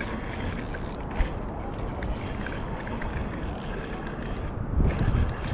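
A spinning reel being cranked to bring in a hooked shad, over a steady noisy rush, with two brief patches of higher hiss about half a second in and about three and a half seconds in.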